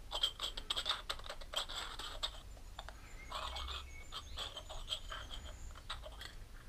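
Light, irregular clicks and small scrapes of a lawnmower carburettor and its brass float being turned over and handled in the hands.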